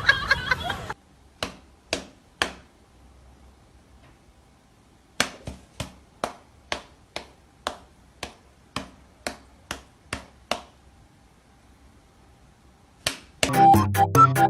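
Sharp taps or knocks: three spaced ones, then after a pause a steady run of about a dozen, roughly two a second. Music starts near the end.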